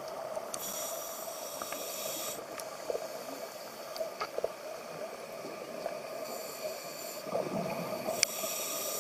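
Underwater ambience with a scuba diver breathing through a regulator: long hissing inhalations, one soon after the start and one near the end, over a steady low hum.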